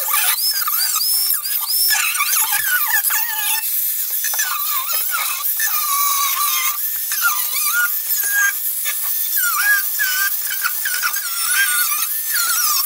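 Corded electric grinder with a cut-off wheel cutting through the sheet-steel trunk floor around the spare tire well: a loud, high-pitched whine with squealing that keeps rising and falling in pitch as the wheel bites into the metal and eases off.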